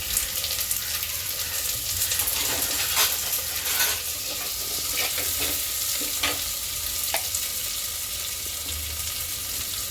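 Chopped onion sizzling in hot oil in a pan, with a spatula scraping and stirring it a few times.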